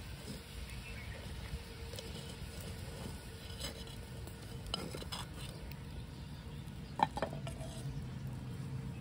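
Light clinks and scrapes of a tiny spoon against a miniature clay pot and its clay lid, with a sharp clink about seven seconds in as the lid comes off. The wood fire's low, steady noise runs underneath.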